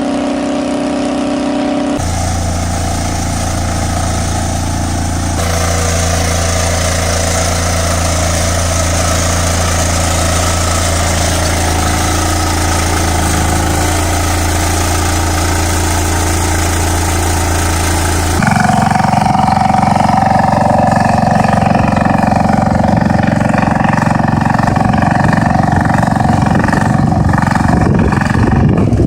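Small walk-behind tractor engines running steadily. The engine note changes abruptly three times, about two, five and eighteen seconds in, as one machine's clip gives way to another's.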